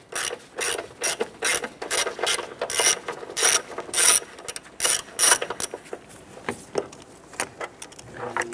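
Hand ratchet with an 8 mm socket on an extension clicking as it is swung back and forth, about three strokes a second, loosening the battery hold-down bolt. The strokes thin out after about six seconds as the bolt comes loose.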